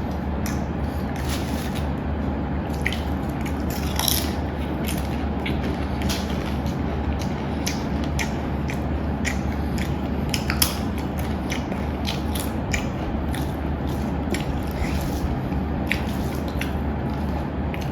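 Eating sounds: irregular short clicks, taps and crunches, a few a second, over a steady low hum.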